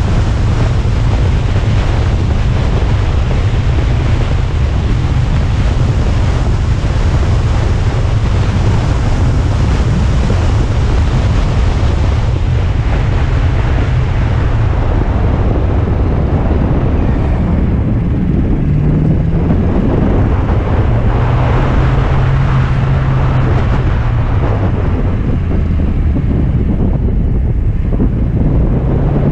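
Alfa Romeo Spider driving down a mountain road: steady wind buffeting the microphone over road noise, with the engine's low note coming through and rising in pitch a couple of times as the car picks up speed.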